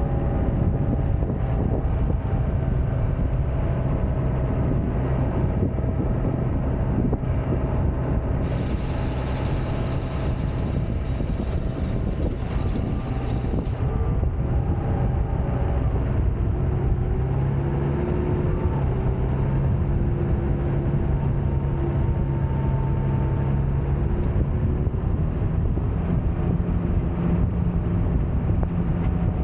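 Tractor engine running steadily under load while pulling a field implement, heard from the cab roof. The engine note rises slightly in steps in the second half.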